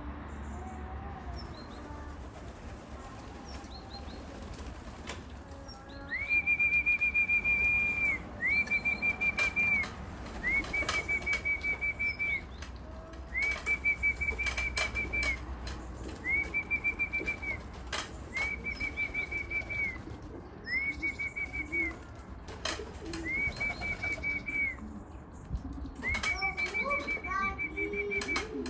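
A pigeon fancier's whistle sounding nine long, high notes of one steady pitch, each one to two seconds with short gaps, starting about six seconds in, to call a racing homing pigeon down into the loft. Sharp clicks and knocks fall between the notes.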